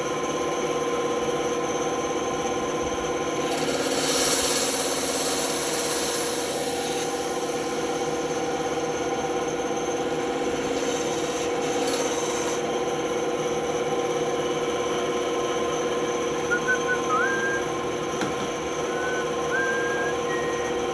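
Band saw running steadily with a constant hum, its blade cutting through wood in two passes: a louder hissing cut from about 3 to 7 seconds in and a shorter one around 11 to 12 seconds.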